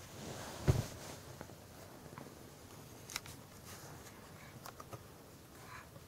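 A baby shifting and rolling over on a blanket: faint rustling and small knocks, with one louder thump near the start.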